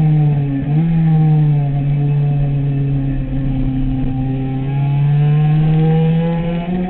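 Sport motorcycle engine running hard on track, a steady high-revving note that shifts in pitch about a second in and climbs just before the end.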